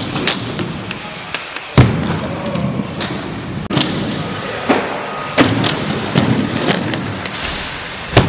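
Skateboard wheels rolling on concrete, cut by a series of sharp clacks and thuds as the board strikes ramps, ledges and the ground; the loudest knock comes about two seconds in.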